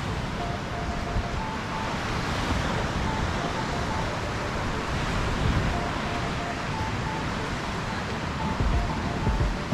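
Ocean surf washing on the shore as a steady hiss, with wind rumbling on the microphone.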